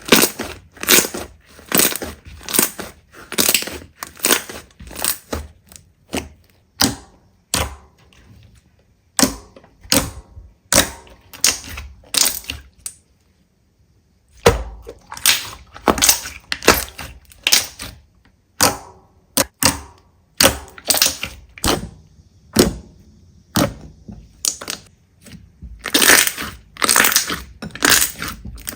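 Crunchy slime being squeezed and pressed by hand, giving rapid runs of sharp crackling crunches, with a short pause about halfway through.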